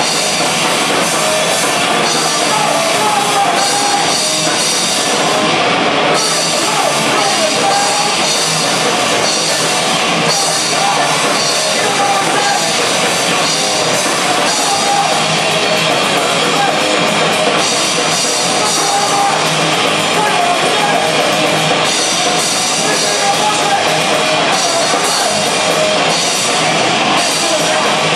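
Live heavy rock band playing loud and without a break: distorted electric guitar, bass guitar and drum kit.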